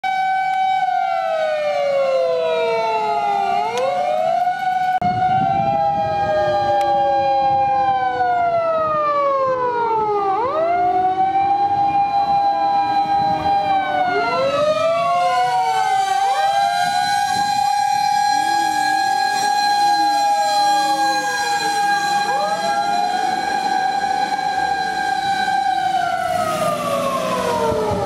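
Sirens of several Japanese fire engines on an emergency run, overlapping, each wailing up to a held tone and sliding back down in long cycles. A truck engine rumbles underneath from about five seconds in, and near the end all the siren tones drop together as a truck passes.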